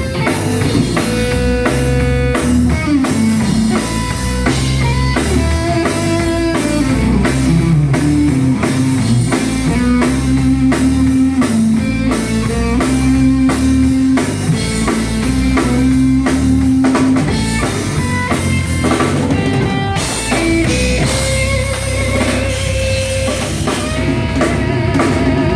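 Live gospel band playing an instrumental passage: drum kit keeping a steady beat under guitar and long held notes.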